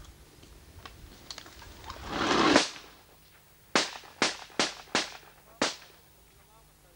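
Gunfire: five sharp shots over about two seconds, after a rushing noise that swells up and cuts off abruptly about two and a half seconds in.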